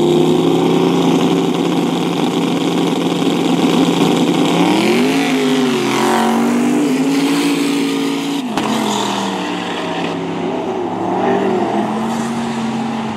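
Drag race car engines running loudly, holding a steady pitch and then rising and wavering about five seconds in. The sound breaks off suddenly a little past eight seconds, and engine noise carries on after the break.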